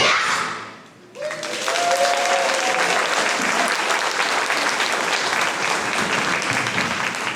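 Audience applause: a children's choir song dies away at the start, and steady clapping from many hands starts about a second in and carries on.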